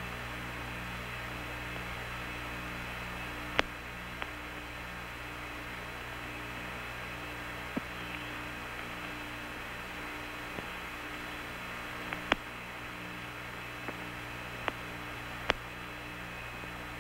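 Hum and hiss of the Apollo 11 air-to-ground radio channel, open with no voice on it. A low hum pulses gently over steady static, and several sharp clicks are scattered through it.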